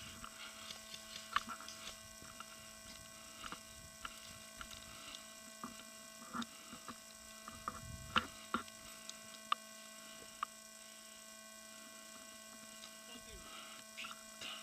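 Steady electrical hum made of several constant tones, with scattered faint sharp clicks and snaps, a handful of them louder between about 8 and 10.5 seconds in.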